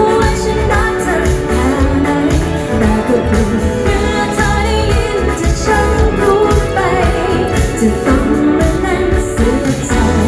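Live Thai pop band performance: a woman singing over electric guitars, drums and keyboard through the PA, playing steadily throughout.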